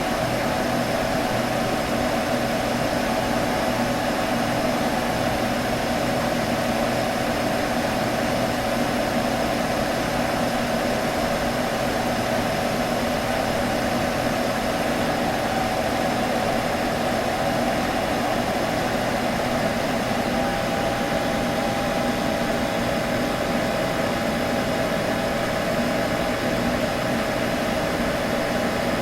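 Computer buzzing: a steady electrical hum at an unchanging level, strongest in a mid-pitched band, with a thin steady tone joining it about two-thirds of the way through.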